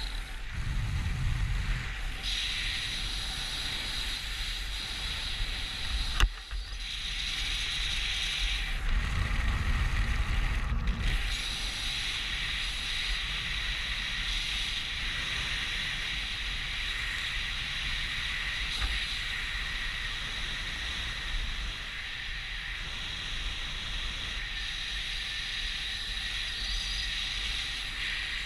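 Steady rushing wind on a skydiver's helmet-camera microphone, with low rumbling buffets about a second in and again around nine to eleven seconds, and a single sharp click about six seconds in.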